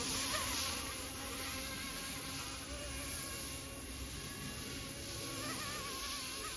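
Kootai F05 RC helicopter in flight: a steady, insect-like buzzing whine from its small electric motor and rotor blades, wavering slightly in pitch.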